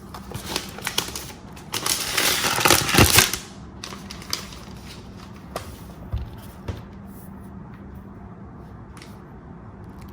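Packaging rustling and crinkling as it is handled, loudest in the first three and a half seconds, followed by a few light clicks and taps.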